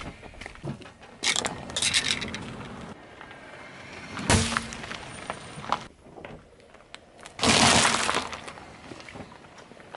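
A car tyre rolling over brittle objects on asphalt and crushing them, in several separate bouts of crunching and cracking: a spell of crackling about a second in, a single sharp crack a little after four seconds, and the loudest, longer crunch a little after seven seconds, likely eggs whose shells are crushed under the tyre.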